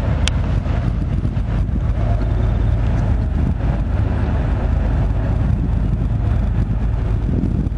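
Steady low rumble of the river cruise ship Ryleyev's engines as it manoeuvres, with wind buffeting the microphone.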